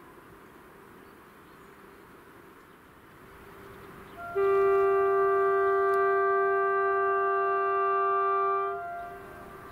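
Train horn sounded in one long, steady blast of about four and a half seconds, starting about four seconds in, as a train approaches the level crossing.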